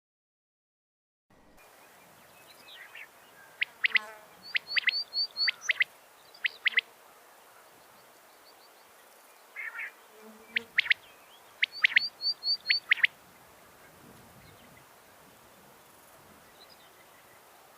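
Female quail calling in two bouts of sharp, short notes, each bout with a quick run of four higher chirps. It is the call said to draw quail flying in. The sound opens with about a second of dead silence.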